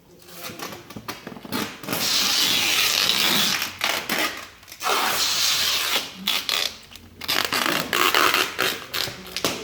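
Rough rubbing and scraping noise in long strokes, with short breaks about five and seven seconds in.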